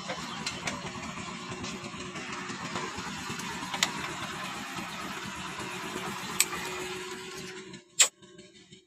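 Motorcycle engine running at low speed with a steady rumble, then going quiet near the end, followed by a single sharp click. A few fainter clicks come earlier.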